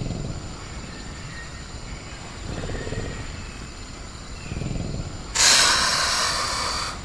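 Sound-designed velociraptor making low, breathy growls three times. Near the end comes a sudden loud hiss lasting about a second and a half. A steady high drone of crickets runs underneath.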